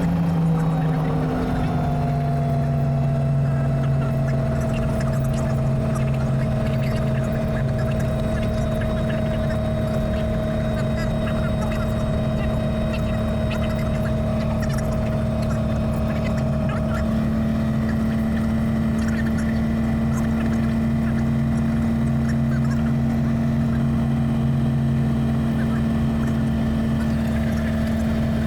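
Robinson R44 Raven I helicopter's six-cylinder Lycoming piston engine and rotors running at ground idle during pre-flight checks. The note shifts in pitch about a second in, then holds steady.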